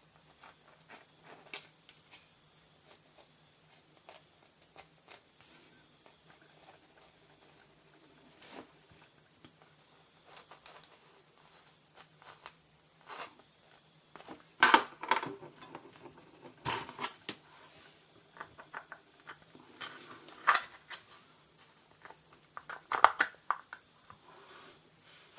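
Small parts being handled during a repair: scattered light clicks and taps, with busier bursts of clattering about halfway through and again near the end.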